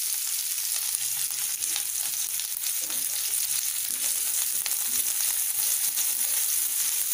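Shredded cabbage and carrot sizzling in hot oil in a non-stick frying pan, stirred with a wooden spatula that scrapes and clicks against the pan.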